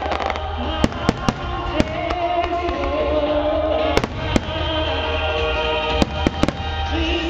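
Fireworks display: about ten sharp bangs of shells bursting at uneven intervals, over loud music with a held melody.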